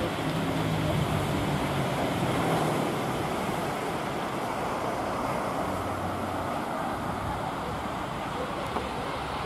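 Steady road traffic noise, with a vehicle's engine hum passing in the first couple of seconds and another a little after the middle.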